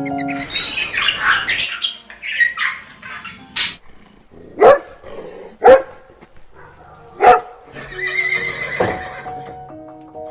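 A dog barking: four short, loud barks spaced about a second apart, after a couple of seconds of rougher, noisier calling.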